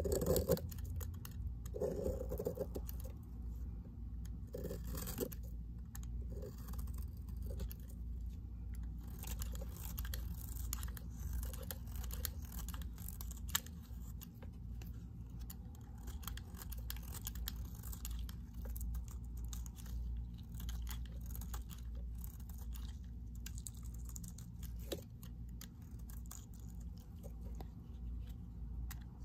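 A snap-off utility knife blade shaving thin curls off a white bar of soap: a continuous run of small crackles and scrapes as the flakes peel away.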